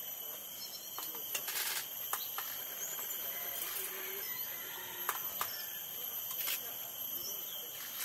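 Camera shutters clicking, a rapid burst about a second and a half in and single shots scattered after it, over the very soft chattering call of a mangrove blue flycatcher.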